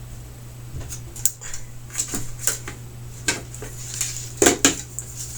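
Irregular light clicks and clacks of plastic and metal TV parts being handled during disassembly, loudest about four and a half seconds in, over a steady low hum.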